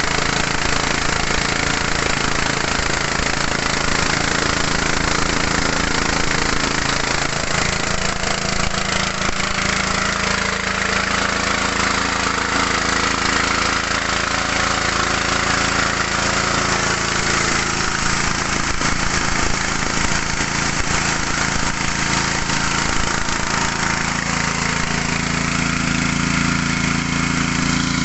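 Small 6.5–7 hp petrol engine running steadily, driving a mini rice huller and polisher, with a dense steady hiss from the machine over the engine note.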